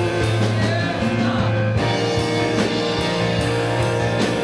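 Live worship band playing a full chorus with electric guitar, bass and drum kit, with regular drum hits and held chords; a short sung note trails over the start.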